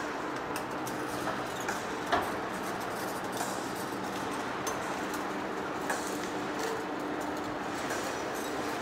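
Heavy-duty lathe running, turning a large forged steel rotor shaft, with a steady mechanical hum. Scattered faint ticks and one sharper click about two seconds in.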